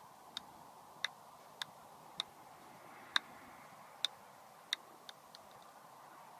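Golf ball bounced repeatedly on the face of an iron club: a string of sharp clicks about every half second to second, with a few quicker, fainter taps about five seconds in.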